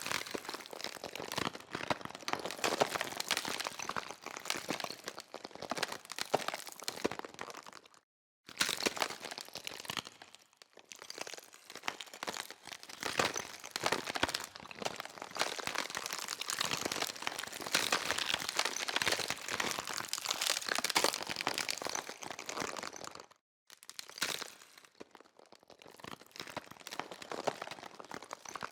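ASMR scratching sound effect: dense, crackly scratching and crinkling, a fast run of tiny clicks. It cuts out completely twice for a moment, about eight seconds in and again about twenty-three seconds in, where the sound loop restarts.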